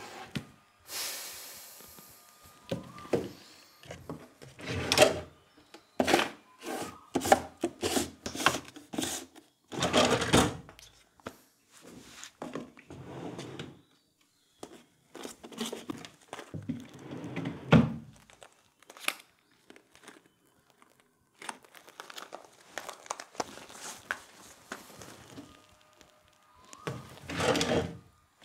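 A desk drawer being rummaged through: irregular knocks and thunks of objects moved about, with rustling, broken by a couple of short pauses.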